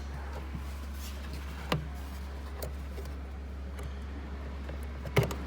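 A few sharp clicks and knocks as the Peugeot 207's rear light unit is handled and slid out of the car body: one clear click a little under two seconds in, fainter ticks after it, and two more clicks near the end, over a steady low hum.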